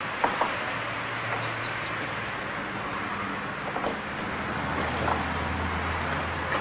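A large wooden barn door being pushed open, with two sharp knocks just after the start and a few softer knocks later as it swings, over a steady hiss and low hum.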